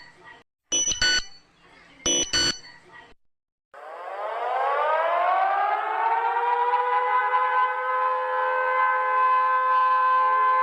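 Two pairs of short electronic alert beeps, then after a brief gap a civil-defense-style siren winds up, rising in pitch over about two seconds, and holds a steady wail.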